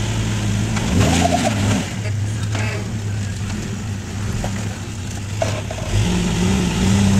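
Lifted Jeep Wrangler rock crawler's engine running at low speed as it crawls up a steep rock ledge, its pitch rising briefly about a second in and again near the end as the throttle is applied.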